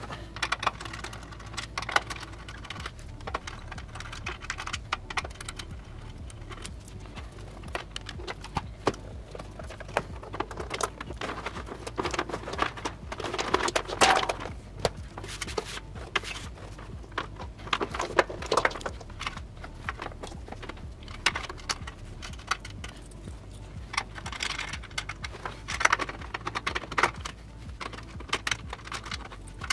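Rapid clicking and clattering of power plugs, cables and rack-mount hardware being handled in a server rack, over a steady low hum.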